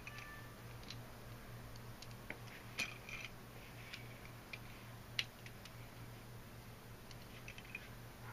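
Lego plates being handled and pressed together: a few scattered small plastic clicks, the sharpest about three and five seconds in, over a faint steady low hum.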